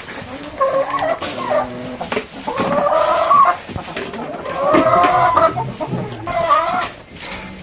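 Chickens calling: about four drawn-out, wavering calls, each lasting about a second.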